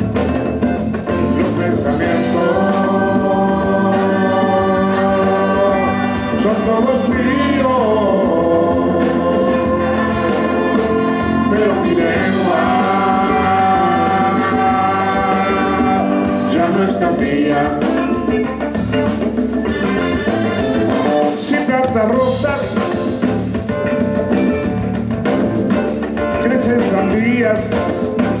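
Live band music with singing: sustained sung vocal lines over conga drums, a drum kit and electric bass.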